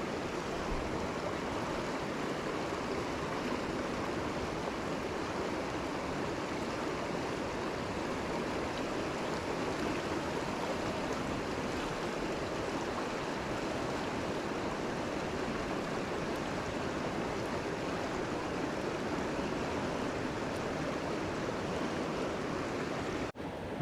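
Fast-flowing river rushing steadily: an even, unbroken wash of moving water.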